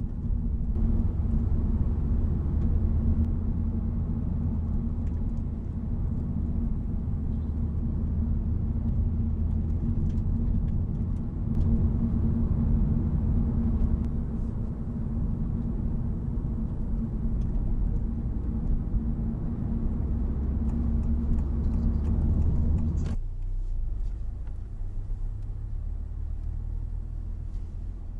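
Honda Civic Type R (FL5) driving: a steady low rumble of engine and road noise. About 23 seconds in, the higher part of the noise cuts off suddenly, leaving a quieter low rumble.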